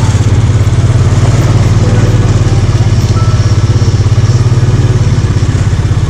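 ATV (four-wheeler) engine running steadily at low speed, heard close from the machine's own handlebars, with an even, fast pulse.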